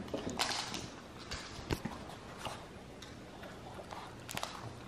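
A pug's claws clicking on a hardwood floor as it goes after a tossed dried-meat crisp: faint, scattered clicks and taps with a brief rustle about half a second in.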